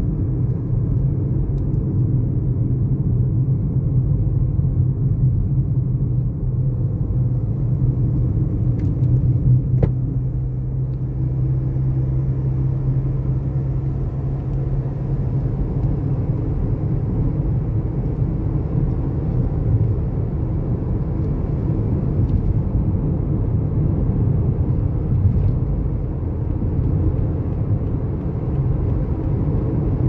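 A car driving along, its road and engine noise a steady low rumble. A low engine drone eases about halfway through.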